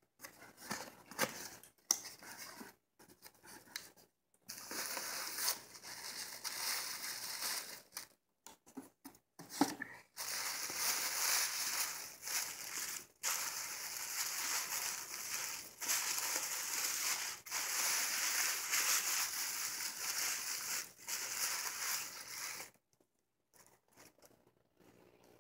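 Tissue paper crinkling and rustling as it is handled and pulled open, in stretches with short pauses, after a few brief scrapes of a cardboard box being opened at the start. Near the end the crinkling stops, leaving only faint handling sounds.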